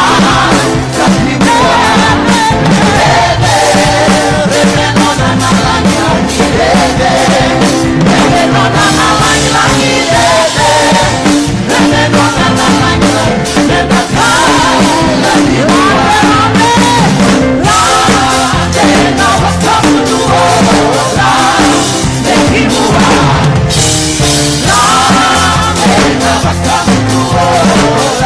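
Live band playing an upbeat worship song with a steady beat, with voices singing over it.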